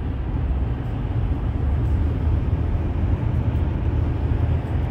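Car cabin noise on the move: a steady low rumble of engine and tyres on the road.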